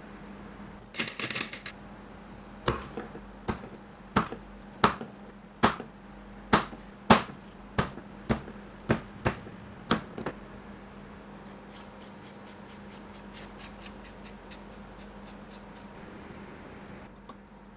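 A 15mm leather corner punch being struck, about a dozen sharp knocks at an uneven pace, as it cuts rounded corners in leather pieces on a poly cutting board. A brief scratchy handling noise comes before the knocks, and faint rapid ticking follows them.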